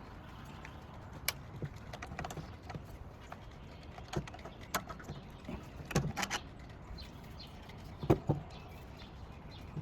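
Scattered light clicks and knocks, about a dozen short sharp ones, the loudest a cluster around the middle and a pair near the end.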